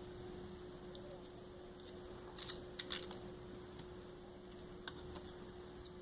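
A few faint, sharp clicks and taps of small plastic and metal parts being handled while a computer mouse is taken apart, a cluster near the middle and two more near the end, over a steady low hum.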